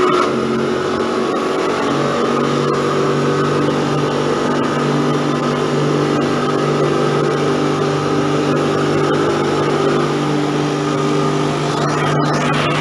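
Wood sawdust-making machine running steadily, its electric motor and rotating blade drum giving a constant mechanical hum. The low tone steps up slightly in pitch about two seconds in.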